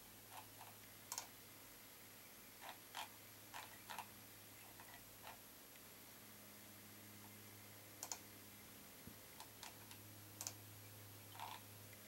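Faint, scattered clicks of a computer being worked while a document scrolls, about a dozen with several in quick pairs, over a faint low steady hum.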